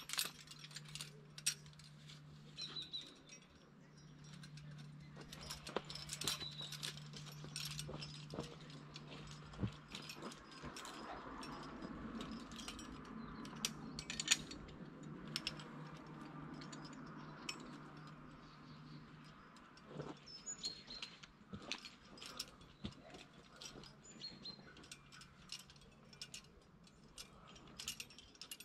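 Scattered light metallic clicks and clinks of climbing hardware: carabiners and quickdraws knocking on the lead climber's harness and being handled as the rope is clipped. A low steady hum runs under the first two-thirds, with a soft rushing noise swelling in the middle.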